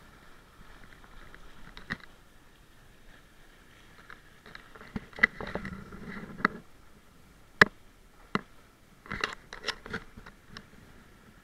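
Wayfarer sailing dinghy underway: water splashing and slapping against the hull, with scattered sharp taps and knocks from the boat.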